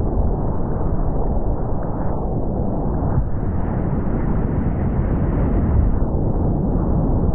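Whitewater rapids in spring flood rushing, with waves breaking and splashing over a solo canoe's bow. Loud and steady, and muffled on the boat-mounted camera's microphone.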